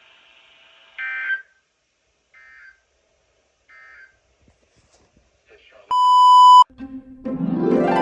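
Three short bursts of the EAS end-of-message data tones (the warbling 'NNNN' code) from NOAA Weather Radio, about 1.4 s apart, the first loudest and the next two faint. These close the weekly test. About six seconds in comes a loud electronic beep at one steady pitch lasting under a second.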